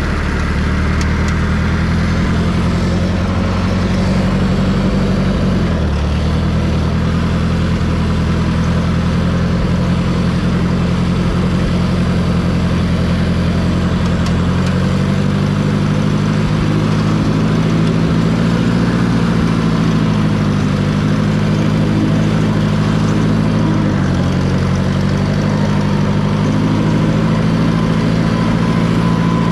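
Farm tractor engine running steadily, its pitch shifting slightly a few times as the engine speed changes.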